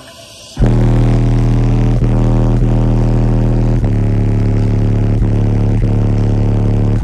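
Two Resilient Sounds Platinum 15-inch subwoofers powered by a Banda 15K amplifier pounding out deep, sustained bass notes inside the car's cabin. The bass comes in suddenly about half a second in and holds loud, with short breaks every second or two.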